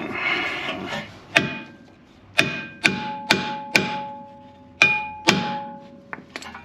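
Hammer blows on the rear brake rotor and hub of a 2010 Mazda 3, seven sharp strikes in uneven groups, the metal ringing after several of them; it is being knocked loose so the rotor can come off for the wheel studs. A short scraping sound comes first.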